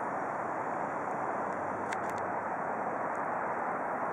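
Steady rushing noise of a city river bank: flowing river water blended with the hum of distant traffic. A couple of faint clicks come about two seconds in.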